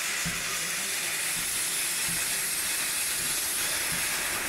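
Steady hiss of steam escaping low at the front of 0-8-0 steam locomotive 414.096, around its cylinders.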